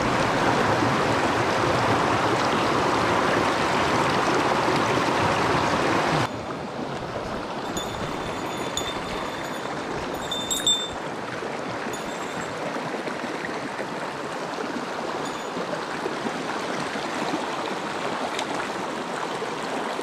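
Rushing mountain-stream water, loud and close for about six seconds, then cutting suddenly to a quieter, steady flow.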